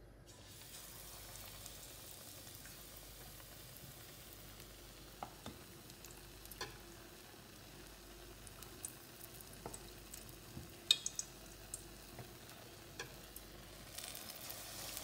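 Hot oil sizzling steadily as besan-battered potato vadas deep-fry, with scattered sharp clicks of a spoon against the batter bowl and pan. The sizzle grows near the end as another battered ball is lowered into the oil.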